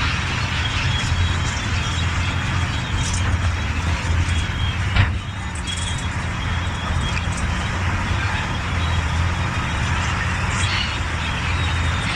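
Heavy crawler bulldozer's diesel engine running steadily under load, with a sharp knock about five seconds in.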